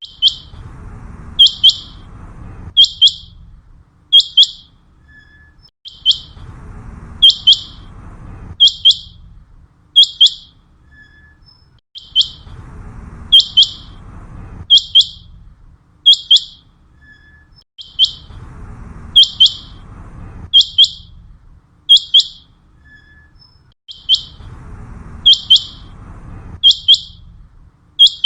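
Common quail calling: a sharp, high-pitched three-note call repeated over and over.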